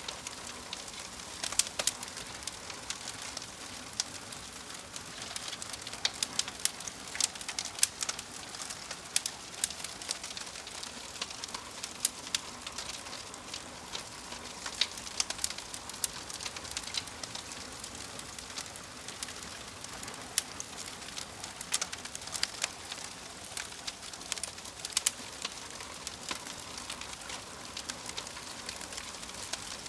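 Log fire burning in a fireplace, crackling and popping: irregular sharp snaps scattered over a steady hiss.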